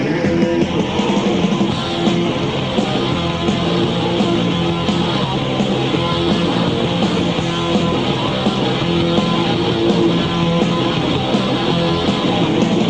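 Live rock band playing: loud guitar-driven punk-rock with bass and drums, the three-piece's full sound at a steady level.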